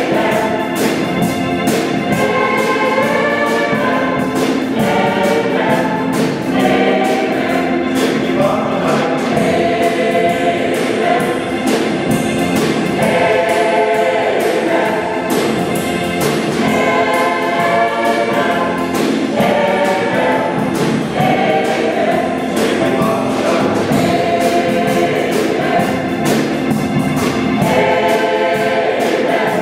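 Mixed choir of men's and women's voices singing together, several parts at once, loud and steady throughout.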